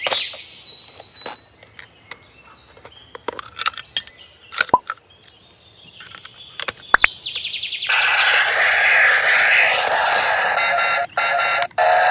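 Light clicks and plastic knocks as toy RC motorcycles are handled, then, about eight seconds in, loud electronic music begins abruptly and runs on, cutting out briefly twice near the end.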